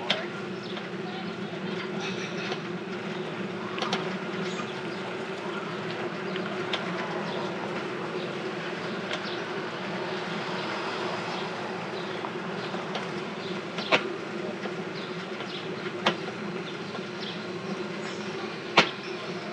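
A rented bicycle's noisy, steady buzzing drone as it rolls along. A few sharp clicks or knocks are heard, the loudest about 14, 16 and 19 seconds in.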